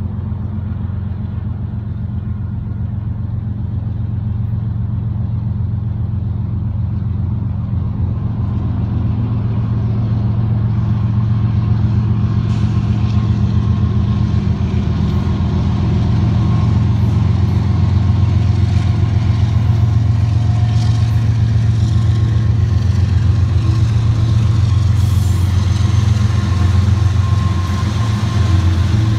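Diesel engines of Union Pacific locomotives leading an intermodal train: a steady low drone that grows gradually louder as the locomotives draw near and pass close by.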